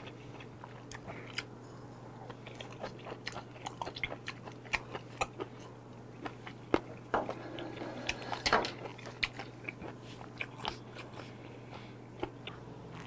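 Close-up eating sounds: a man biting and chewing a Chinese seafood stir-fry (palbochae), with many small wet, crunchy mouth clicks and a louder one about eight and a half seconds in.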